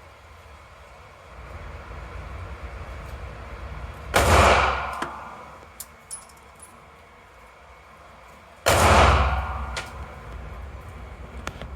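Two handgun shots, about four and a half seconds apart, each a sharp crack with a reverberating tail that dies away over about a second. A few faint clicks come between the shots.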